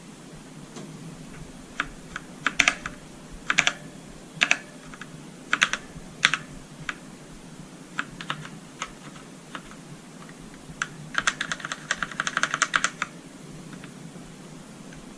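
Redragon Ratri K595 mechanical keyboard with Outemu Black linear switches being typed on. Scattered single keystrokes and several louder clacks are followed by a quick burst of rapid typing a few seconds before the end.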